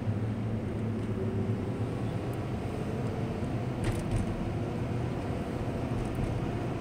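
Steady engine and road noise inside a moving car's cabin, a low hum with one faint click about four seconds in.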